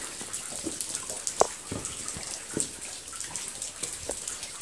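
Water dripping and trickling inside a limestone cave: scattered drops falling over a steady wet hiss, with one sharper drop about a second and a half in.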